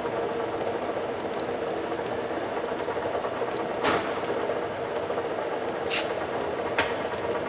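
Mazak 18" x 60" gap-bed engine lathe running in its low spindle range under power feed: a steady gear-train hum with a constant tone. A few short, sharp clicks come about four, six and seven seconds in.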